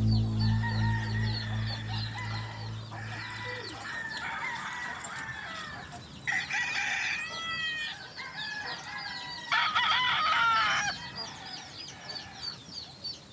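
Gamefowl roosters crowing, two loud crows each a little over a second long, the first about six seconds in and the second near ten seconds, over steady high chirping of small birds.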